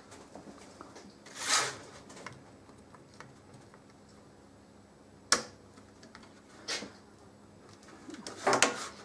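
Pliers working on a starter motor's end housing: a brief scrape about a second and a half in, a sharp click about five seconds in and a smaller one soon after, then a short clatter near the end as the pliers are put down on the bench.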